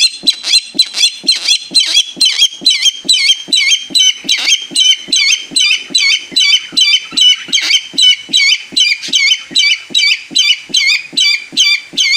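A pet barred rail (tikling) calling: a long, unbroken run of loud, harsh notes, about three a second, without a pause.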